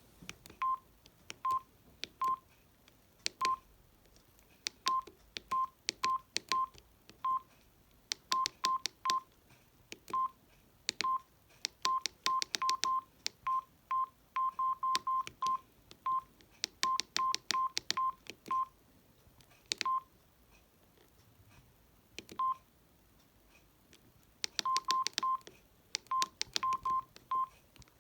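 Samsung SGH-D600 mobile phone keypad: a short beep, always at the same pitch, each time a key is pressed, each with a click. The presses come at uneven pace, sometimes singly, sometimes in quick runs, as the menus are navigated.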